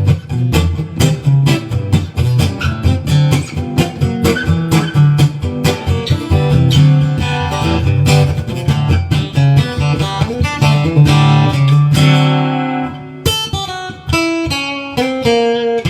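Washburn acoustic guitar fitted with a K&K Pure Mini bridge-plate pickup, strummed in a rhythm pattern. About twelve seconds in, a chord is let ring, and single picked notes follow near the end.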